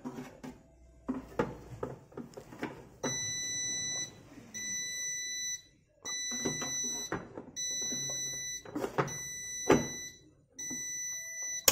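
Metal bread pan knocking and scraping as it is seated in a bread maker. About three seconds in, an electronic alarm starts beeping: a high steady tone of about a second at a time with short gaps, repeating. There is one sharper knock near the end.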